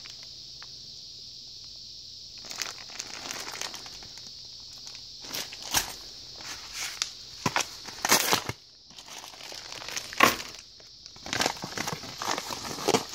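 Packaging being handled and unwrapped by hand: crinkling and rustling in short spells from a couple of seconds in, with scattered sharp crackles and a few louder clicks.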